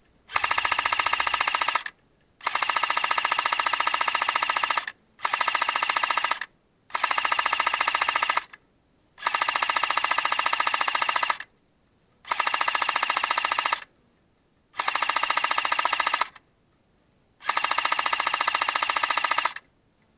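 Airsoft gun firing on full auto in eight long bursts of rapid, even clicks, each one to three seconds long, with short pauses between them.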